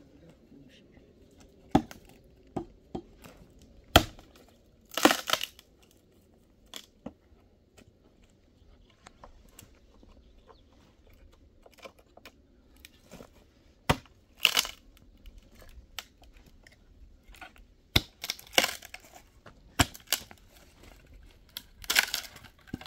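Dry branches being broken up by hand: irregular sharp snaps of dry wood with pauses between, some followed by a brief crackling crunch of splintering twigs.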